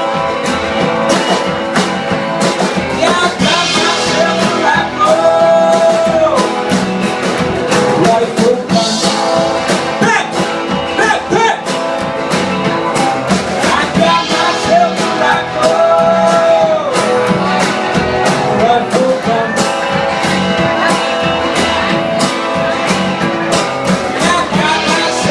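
Live rock-and-roll band playing with guitar and drums keeping a steady beat, with held, bending lead notes.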